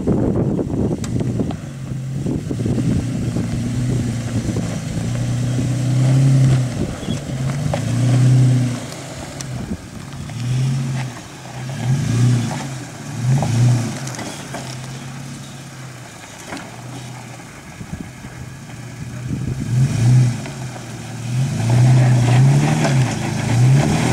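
Lifted Toyota Tacoma pickup's engine revving in repeated short surges, each rising and falling in pitch, as the truck crawls up over rocks under load.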